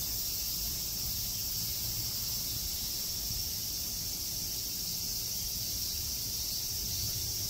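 Steady chorus of crickets and other night insects, an unbroken high trilling, over a low rumble.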